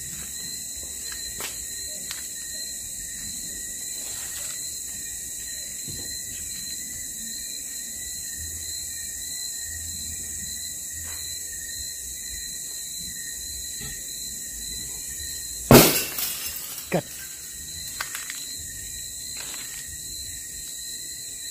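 Glass shattering in one loud sudden crash about three-quarters of the way in, with pieces scattering and a second sharp smash about a second later. Steady high insect chirring runs underneath.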